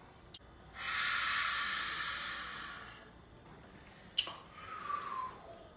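A long hissing breath drawn through the mouth, fading out over about two seconds: someone cooling a mouth burning from ghost pepper hot sauce. A click and a short falling vocal sound follow near the end.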